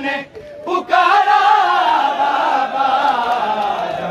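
Many men's voices chanting a noha, a Shia Muharram lament, in unison. There is a brief break about half a second in, then a long, drawn-out sung line.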